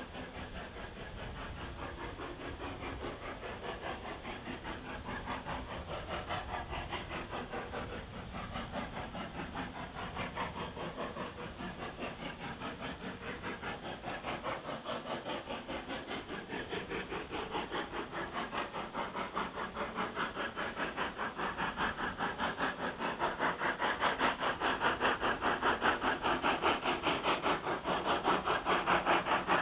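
Steam locomotive working a train, its exhaust beats coming in a rapid, even rhythm and growing steadily louder.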